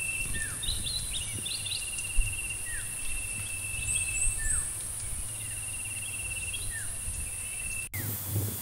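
Outdoor field ambience of insects and birds: a steady high-pitched insect buzz and a pulsing trill that comes and goes in stretches of a second or two, with birds calling in short falling whistles and quick high chirps. Near the end it cuts off abruptly and gives way to a rushing, wind-like noise.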